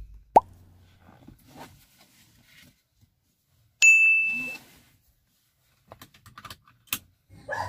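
Seatbelt being pulled across and buckled in a car, with soft rustles and small clicks. A single bright ding rings out about four seconds in and fades within about half a second.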